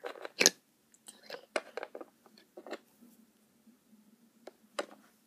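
Small plastic toy pet figurines being picked up and set down on a wooden floor by hand: scattered light clicks and taps at irregular intervals, the loudest about half a second in.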